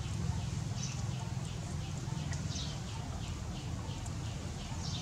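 Small birds chirping in the background: short high falling chirps several times a second, with a louder one every second or two, over a steady low rumble.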